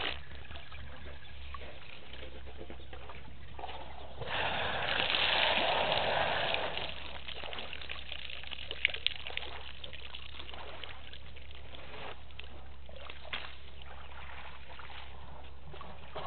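Elephants splashing water at a waterhole, with one loud burst of splashing lasting about two and a half seconds, about four seconds in. A couple of sharp clicks come near the middle, over a steady low hum.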